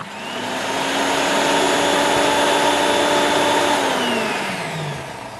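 Electric food processor running, whipping liquid ingredients (eggs, milk, oil) in its bowl: the motor spins up at once and runs with a steady whine, then is switched off about four seconds in and winds down with a falling pitch.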